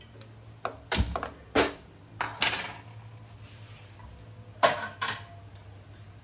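Steel cooking pot and utensils clinking and knocking: several sharp metallic taps in small clusters over a low steady hum.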